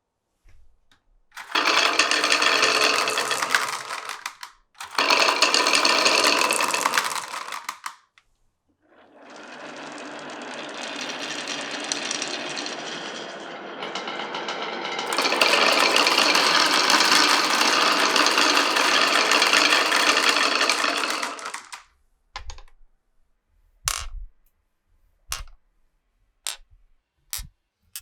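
Glass marbles rolling and rattling down wooden and pipe marble-run tracks in several runs of a few seconds each, with a quieter run in the middle. Near the end they give way to a string of separate sharp clacks as marbles drop and knock together.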